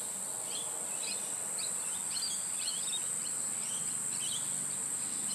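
Outdoor ambience: a steady high-pitched insect drone with many short bird chirps scattered throughout.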